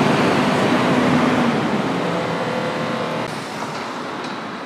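A road vehicle driving past on the street, its engine and tyre noise fading steadily away.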